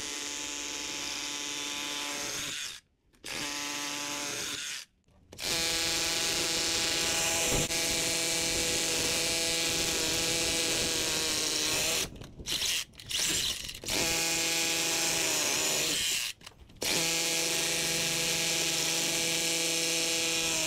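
DeWalt DCH172 20V Max compact cordless SDS-plus rotary hammer drilling into a concrete slab. It runs at a steady pitch in several stretches of a few seconds each, with brief stops in between and a few short stop-start pulls on the trigger about two-thirds of the way through.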